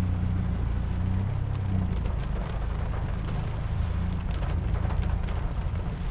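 Steady low rumble of a car driving in heavy rain, heard from inside the cabin, with scattered ticks of raindrops hitting the windshield and roof.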